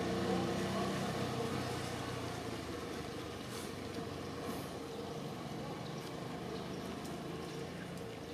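A motor vehicle engine running steadily in the background, fading over the first couple of seconds to a weaker hum.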